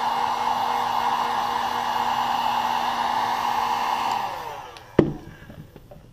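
A 1500-watt heat gun blowing steadily with its fan motor humming, then switched off about four seconds in and spinning down. About a second later a single sharp knock as the gun is set down on the table.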